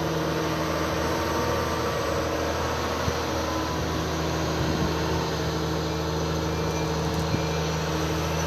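Cat 323 hydraulic excavator's diesel engine running steadily while the machine swings and raises its bucket.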